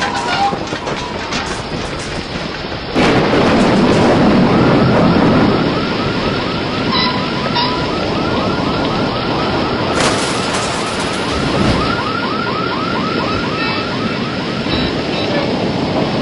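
Storm sound effects: a steady rush of wind and rain that swells sharply about three seconds in. Through the middle a fast repeating high chirp, about four a second, runs over it.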